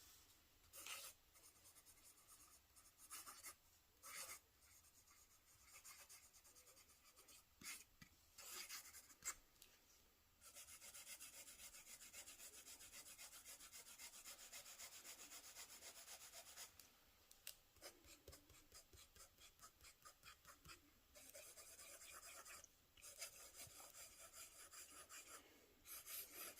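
Faint scratching of a pen nib writing across paper. First come separate short strokes, then from about ten seconds in a long run of quick, even back-and-forth strokes, as when shading or filling in a swatch.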